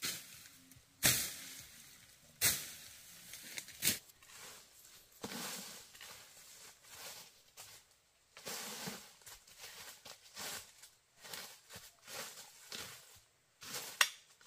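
Rustling and scraping of plant material, broken by four sharp knocks: three in the first four seconds and one near the end.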